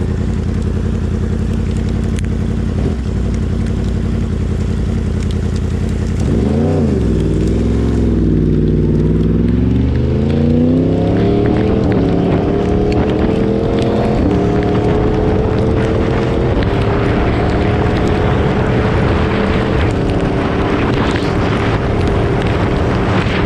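Yamaha R1 crossplane inline-four engine running steadily, then blipped up and down once. It then pulls away and accelerates up through the gears, its pitch climbing and dropping briefly at each of about four shifts. A hiss rises over the engine in the second half as speed builds.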